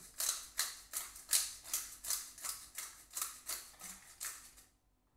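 Pepper mill grinding peppercorns: a run of short rasping crunches, about three a second, one per twist, stopping shortly before the end.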